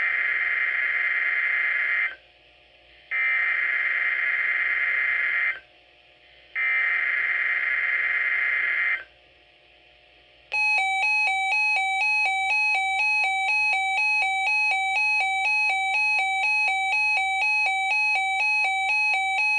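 Emergency Alert System SAME header on NOAA Weather Radio: three digital data bursts of about two seconds each, a second apart, encoding a severe thunderstorm watch. They are followed by about nine seconds of a loud electronic alert tone alternating rapidly between two pitches.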